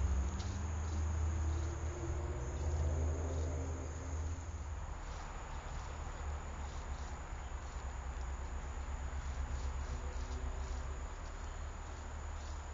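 Insects chirping in short, repeated pulses over a steady low rumble.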